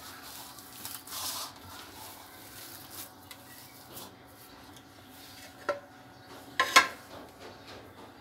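Hand squishing and kneading a soft mashed potato mixture in a bowl. Two sharp knocks against the bowl come past the middle, the second the loudest sound.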